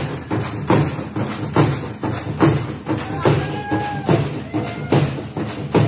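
Frame drums beating a driving rhythm for a tiger dance: a strong stroke a little under once a second with lighter strokes between. A brief held tone sounds a little past halfway, with crowd voices under the drumming.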